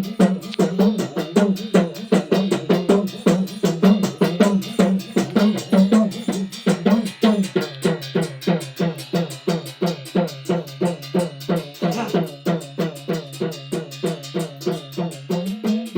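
Hudka, the hand-played hourglass drum of Uttarakhand, beaten in a quick, even rhythm of about four strokes a second. Its pitched tone drops lower about halfway through and slides back up near the end.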